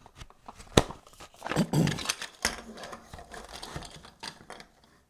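3D-printed plastic parts of an articulated dinosaur clicking and knocking as they are handled and snapped together at the neck joint. The sharpest click comes a little under a second in.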